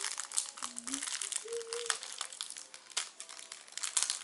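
Packaging crinkling and rustling in irregular crackles as it is torn open by hand to unwrap plastic chrome wheel spikes.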